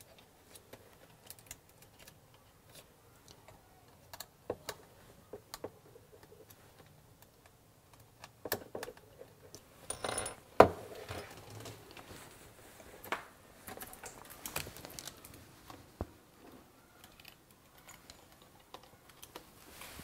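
Scattered small clicks, taps and rustles of a plastic smart doorbell and its power-supply cable being handled and connected on a tabletop, with the sharpest click about ten and a half seconds in.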